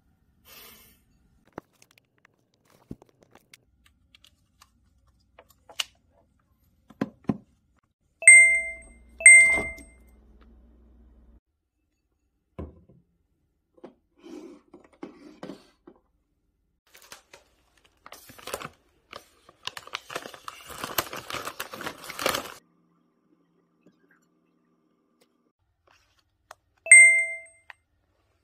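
A bright notification-style chime rings twice, about eight and nine seconds in, and once more near the end. Between the chimes come small clicks and knocks of things handled on a desk, and a few seconds of rustling and crinkling.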